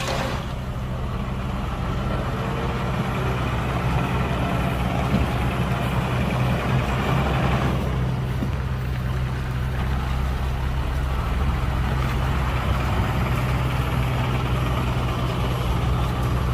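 Heavy diesel engine of earthmoving equipment running steadily at low speed.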